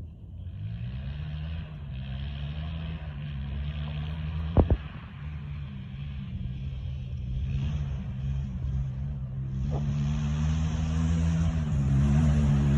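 SSR 189cc pit bike's single-cylinder four-stroke engine running, its pitch stepping up about a second in, then climbing slowly as it gets louder toward the end. A sharp knock, the loudest sound, comes about four and a half seconds in, with a fainter one near ten seconds.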